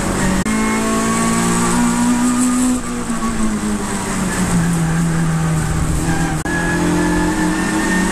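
A saloon race car's engine heard from inside the cockpit at high revs, over steady road and wind noise. Its note breaks briefly three times and falls in pitch through the middle as the car slows, then climbs again near the end.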